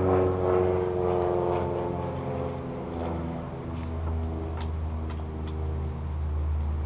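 A motor vehicle's engine running nearby: a steady low drone whose pitch slides slowly down, with a few faint clicks over it in the second half.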